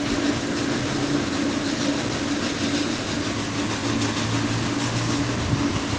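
Grain-drying mill's machinery running while drying soybeans: a steady mechanical drone with a low hum. This is the constant day-and-night noise that nearby residents complain of.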